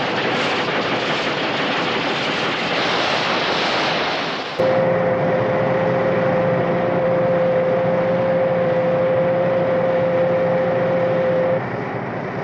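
Sound effect of the Thunderbirds Excavator boring through rock: a loud, dense grinding and rushing noise that about four and a half seconds in changes abruptly to a steady machine drone with a high whine. The whine stops about a second before the end.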